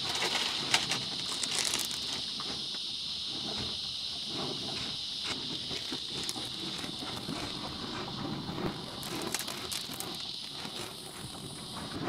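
Cattle eating grain feed from a wooden trough, close up: irregular crunching, rustling and small clicks as their muzzles work through the feed. A steady high chirring of insects runs underneath.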